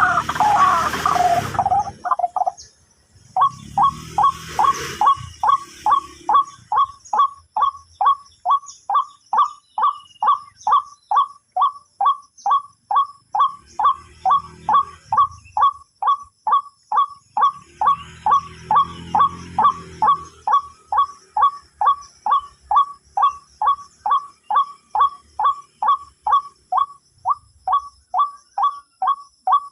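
White-breasted waterhen (ruak-ruak) calls. A dense burst of calls opens, then a single call repeats at an even pace of about two a second.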